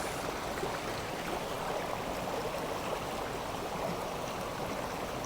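A river flowing steadily: an even, unbroken rush of running water.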